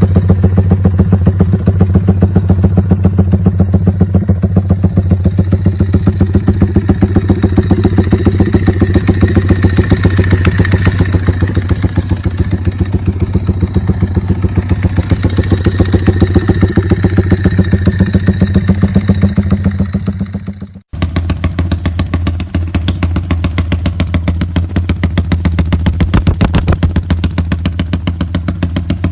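Modified Yamaha Y15ZR's 150 cc single-cylinder engine, fitted with a Comstar dry clutch, running at a steady idle through its exhaust with evenly spaced firing pulses. About two-thirds of the way through, the sound breaks off for an instant, then carries on at a similar steady pace.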